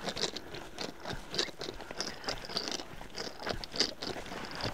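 Footsteps crunching and scraping through dry brush and leaves, an uneven series of small crackles and snaps.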